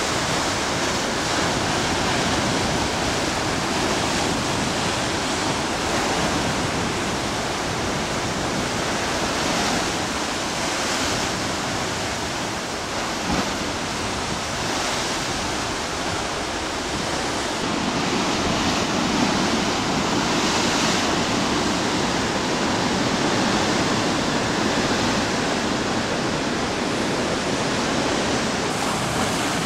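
Heavy ocean surf churning through a narrow rock inlet: a continuous loud rush of foaming water that swells a little each time a wave surges in and breaks against the rock walls.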